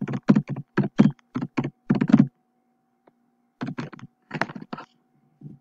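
Typing on a computer keyboard: a quick run of sharp keystrokes for about two seconds, a pause, then a shorter run of keystrokes about four seconds in.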